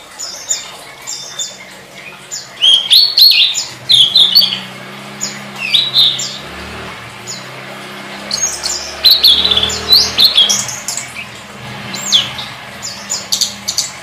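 Tledekan, an Indonesian blue flycatcher, singing energetically in bursts of sharp high chirps and quick down-slurred notes.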